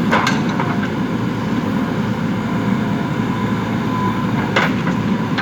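JCB 3DX backhoe loader's diesel engine running steadily under load, with two short sharp knocks, one just after the start and one near the end.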